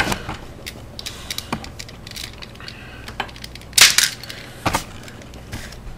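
Plastic clicks and knocks from handling the Beast Wars Fuzor Injector action figure while its hornet-stinger missile launcher is worked, with two sharper snaps about four and five seconds in.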